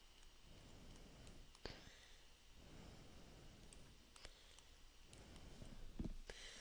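Near silence with a few faint clicks and taps of a stylus on a tablet screen as words are handwritten.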